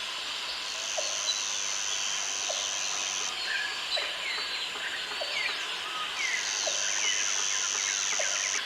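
Forest ambience: a dense chorus of many birds chirping and calling over one another, with a steady high-pitched insect buzz that runs for a few seconds, stops, and starts again about six seconds in.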